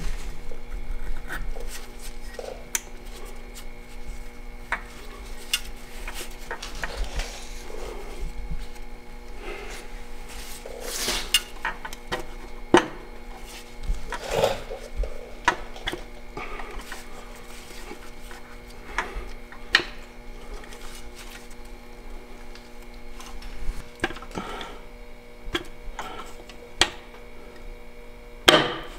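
Irregular light metallic clicks and clinks of tools, bolts and a connecting rod cap being handled at an engine's crankshaft, over a steady background hum. The sharpest clinks come about 13 s and 20 s in and just before the end.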